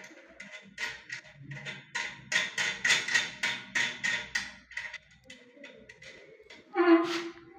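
Clicking and tapping of a tool on the screws that fix a closed-coupled toilet's cistern to the bowl as they are tightened: a quick run of sharp clicks over the first few seconds, then a louder ringing scrape near the end.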